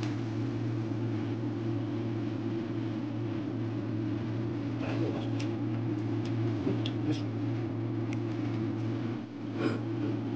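Steady low hum of a running room appliance, with a few brief faint clicks and smacks of eating scattered through the second half.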